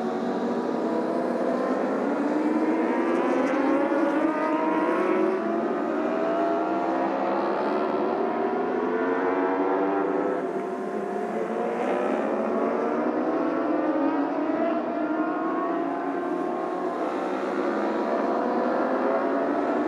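Several racing motorcycle engines accelerating through the gears, overlapping. Each climbs in pitch and drops back at the upshifts, over a steady wash of engine noise.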